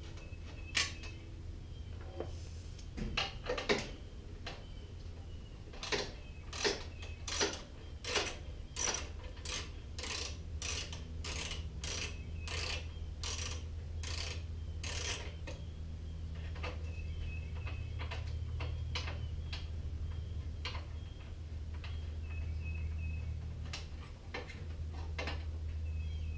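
Hand tools at work on a mower engine: an evenly spaced run of sharp metallic clicks, about one and a half a second, lasting about ten seconds, with scattered knocks and taps before and after, over a steady low hum.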